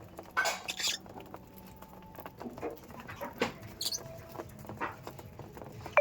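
Budgerigars calling in short, scattered chirps, with the loudest cluster about half a second in.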